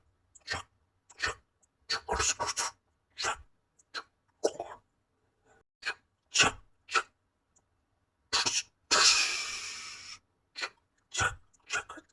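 Cartoon sound effects: a string of short, sudden sounds with silence between them, and a longer hissing whoosh about eight seconds in that fades away over a second or so.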